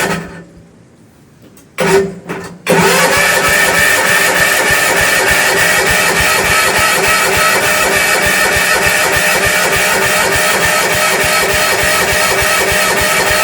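Gravely Pro 8's engine being cold-started: it cuts out at first, sputters briefly about two seconds in, then catches and runs steadily.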